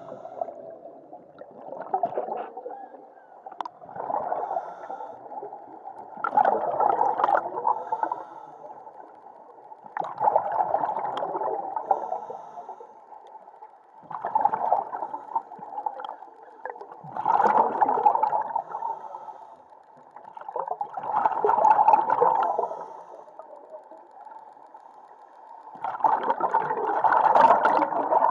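Scuba diver's regulator breathing heard underwater: a bubbly rush of exhaled air about every three to four seconds, each lasting a second or two, with quieter gaps between breaths.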